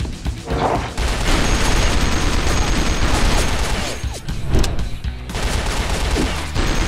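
Rapid, continuous gunfire in a dense volley, starting about a second in, easing briefly about five seconds in, then picking up again, over background music.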